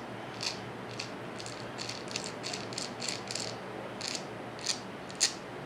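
Light, irregular clicks and rattles of small gear and axle parts as the rebuilt rear axle of a Losi Rock Rey RC truck is handled and turned by hand, about two to three clicks a second. It is turning with some roughness rather than smoothly.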